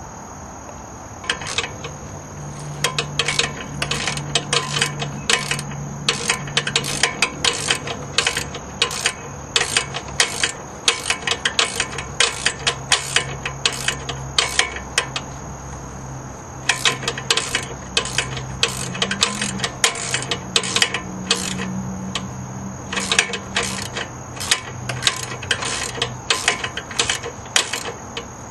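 Ratchet wrench clicking in quick runs of several clicks a second, with short breaks, as the power steering belt's adjuster is cranked to tension the newly fitted belt. Crickets chirp steadily behind it.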